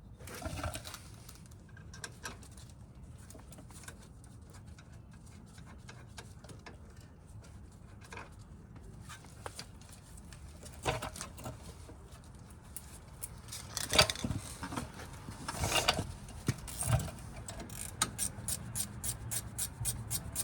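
Hand tools clinking and knocking against the brake caliper, with a few louder metal knocks, then an even run of ratchet clicks, about four a second, near the end as the caliper bolts are run in.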